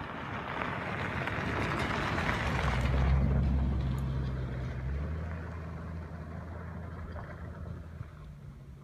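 A motor vehicle passing close by: a rush of engine and tyre noise swells to a peak about three seconds in, then fades, leaving a steady low engine hum.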